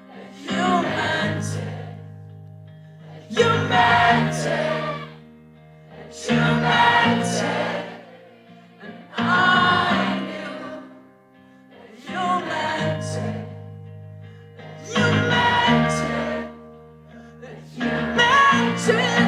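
Live acoustic guitar song: held strummed chords under sung phrases that come about every three seconds, with many voices singing along in the manner of a crowd sing-along.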